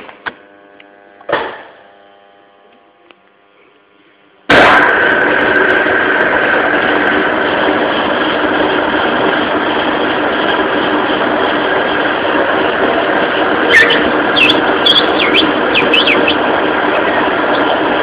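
A couple of sharp clicks, then a lathe switches on about four and a half seconds in and runs loudly and steadily, with a few short high squeals near the end.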